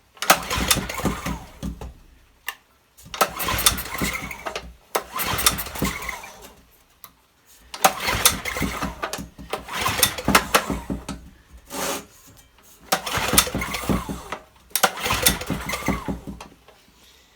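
Old Honda generator's small engine being pull-started again and again: about seven recoil-cord pulls, each cranking it over for a second or two, and it never fires.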